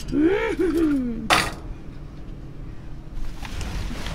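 A person's drawn-out, wavering vocal sound, then a brief sharp rustle and crinkling of plastic trash bags and junk being shifted by hand in a dumpster.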